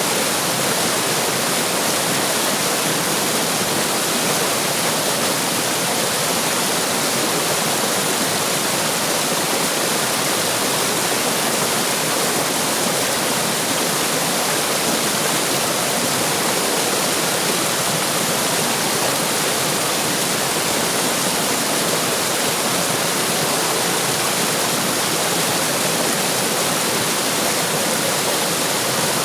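Running water rushing and splashing steadily over rocks, a loud, even rush with no changes.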